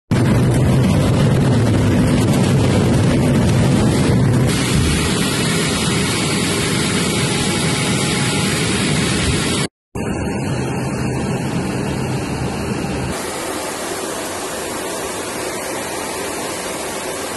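A steady, loud rush of aircraft engine noise and airflow heard aboard an amphibious firefighting water-bomber, mixed at first with water spray as the hull skims the sea. The sound cuts out for an instant about ten seconds in, then returns with less low hum.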